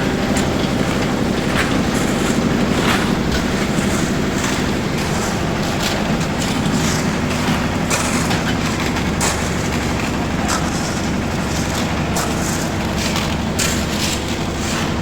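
A steadily running engine-driven machine with a low drone, and scattered clanks and knocks over it.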